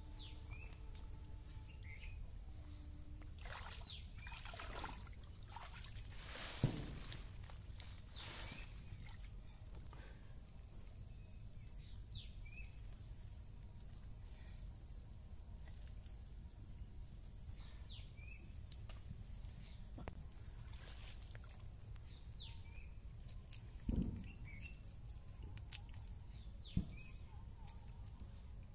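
Birds chirping repeatedly, short calls falling in pitch every second or two, over a steady high tone. Water splashes and sloshes now and then as a woven bamboo fish trap is handled in a shallow stream, with a few sharp knocks.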